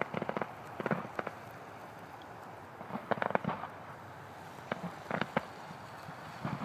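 Fireworks going off: four volleys of quick sharp pops and crackles spread over several seconds.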